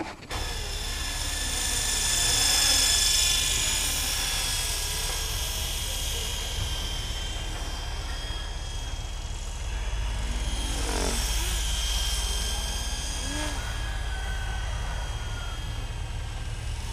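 Electric motor and rotor blades of an eSky Honeybee FP V2 model helicopter fitted with SuperBlades XP, in flight: a steady high whine that swells about two seconds in and again around eleven seconds.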